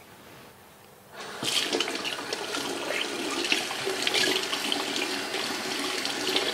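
Kitchen tap turned on about a second in, water running into the sink as a tea cup is rinsed under it.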